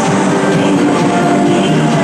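Background music playing at a steady level.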